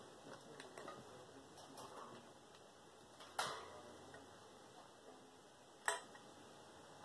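Faint handling noise of a desk fan being taken apart: light taps and clicks of a screwdriver and small fan parts, with two sharper clicks, one about halfway through and one near the end.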